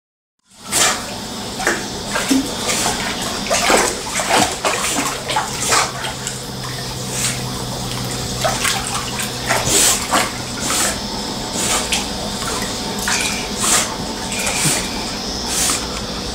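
Pool water splashing and sloshing as a dog paddles, held by a person, with irregular splashes over a steady hum. It starts suddenly about half a second in.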